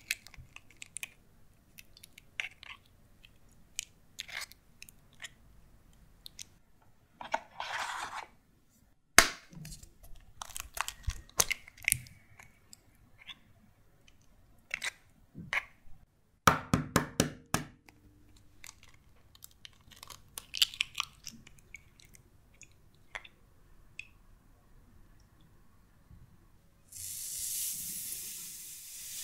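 Brown eggs cracked and their shells pulled apart by hand, with sharp cracks and shell crunching, the whites separated into a glass bowl, several times over. Near the end, granulated sugar poured into a glass bowl with a steady hiss.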